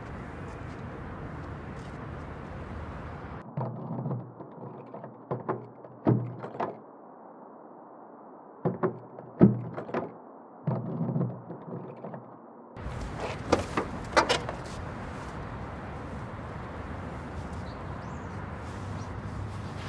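Car door handle and latch being worked, a series of clicks and thumps heard muffled from inside the cabin. About thirteen seconds in come sharper, clearer clicks as the door is pulled open.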